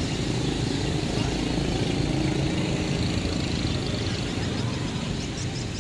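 Steady rumble of street traffic, motor vehicles running.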